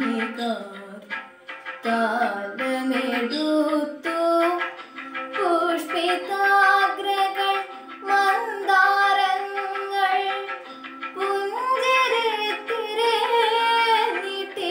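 A girl singing solo in an Indian classical-style melody, her voice gliding and ornamenting between held notes, over a steady drone tone.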